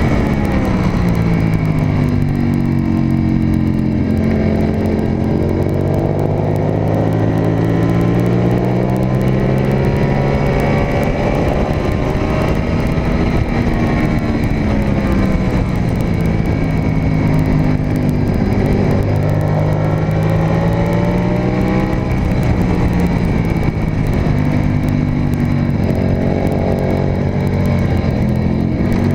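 Onboard sound of a Suzuki SV race bike's V-twin engine at racing speed. The revs drop and climb again several times as the bike brakes into corners and accelerates out.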